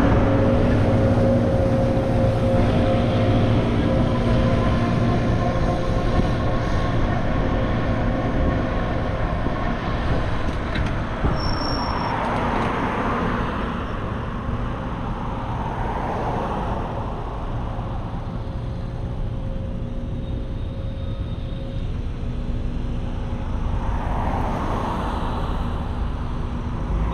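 Road traffic: a steady engine hum, with several motor vehicles swelling past, about halfway through and again near the end.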